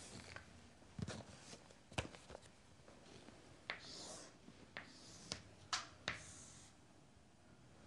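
Faint chalk on a chalkboard: scattered sharp taps of the chalk striking the board, with a short scratchy hiss of chalk sliding across it about four seconds in.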